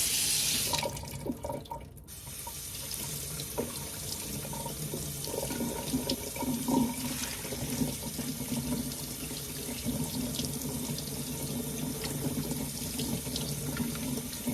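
Kitchen tap running into a sink as raw chicken is rinsed by hand. A loud hissing rush in the first second gives way, after a brief break at about two seconds, to a steadier flow with a few knocks from handling.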